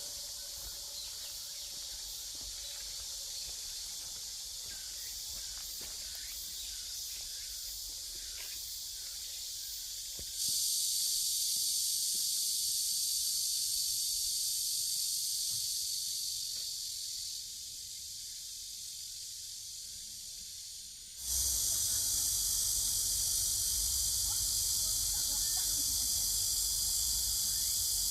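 Steady high-pitched insect chorus, a continuous shrill hiss that jumps louder about ten seconds in and again about twenty-one seconds in, where the shot changes.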